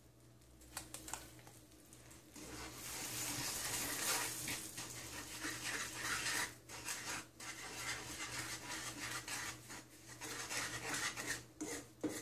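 Wooden spatula stirring and scraping granulated sugar through melted butter in a metal skillet, a gritty rubbing and scraping of many short strokes that starts about two seconds in.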